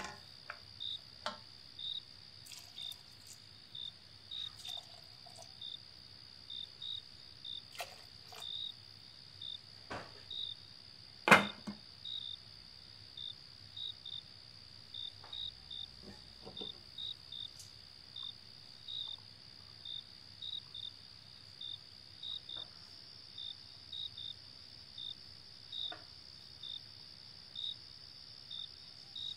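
A cricket chirping at an even pace, about one to two short high chirps a second, over a constant high-pitched hum. A few light clicks and one sharp knock about eleven seconds in.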